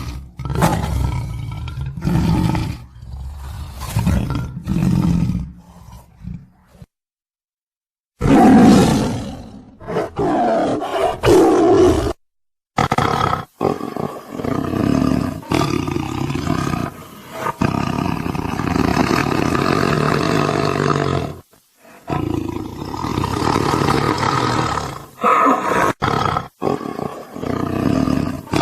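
Tiger roaring and growling: a run of loud calls, one after another with short breaks. The sound cuts abruptly to dead silence twice, about a quarter of the way in and again just before halfway.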